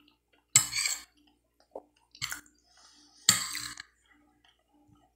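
A metal spoon scraping and clinking on a glass plate while food is scooped up, in three short, sharp bursts.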